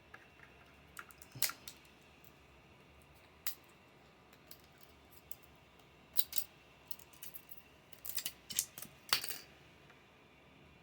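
Irregular light clicks and taps of small hard parts being handled, with the sharpest about a second and a half in, around six seconds, and around nine seconds.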